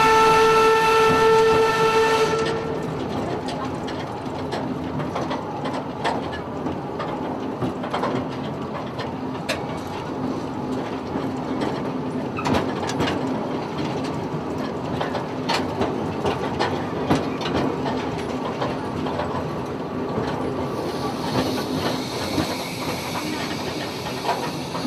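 A small steam locomotive sounds its whistle, one steady blast of about two and a half seconds at the start. The train then runs on with a steady rumble and irregular clicks and clanks from the wheels and cars, heard from on board an open carriage. Near the end a hiss of steam joins in.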